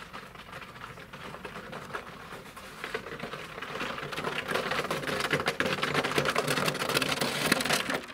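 Red plastic snow sled dragged by a dog over rough asphalt, a fast scraping clatter that grows louder from about three seconds in as it comes closer, then stops suddenly near the end.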